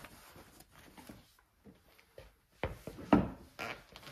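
Denim rustling as a jeans leg is pulled down over a leather boot, then Nick's handmade leather boots stepping on a laminate wood floor: several firm heel knocks from about two and a half seconds in.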